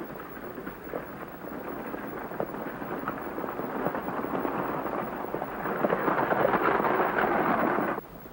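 Horse-drawn wagon approaching on a dirt road: hoofbeats and wheels in a dense clatter that grows steadily louder, then cuts off abruptly near the end.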